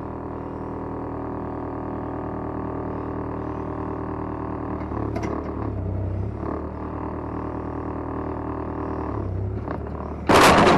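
Engine of a tracked backhoe running steadily, heard from inside the cab, its note shifting briefly twice. Near the end there is a loud, sudden clattering bang as the machine drops from one track back onto both.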